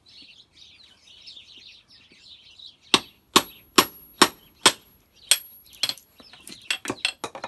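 Heavy hammer striking the back of a hatchet, metal on metal, driving the blade down through a wooden spoon blank to split it along the handle. About six hard blows come a bit over two a second starting about three seconds in, then quicker, lighter taps near the end.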